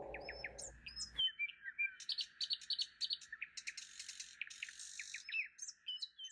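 Songbirds chirping and singing: many short, quick high calls and sweeping notes with a few rapid trills. A fading low sound cuts off about a second in.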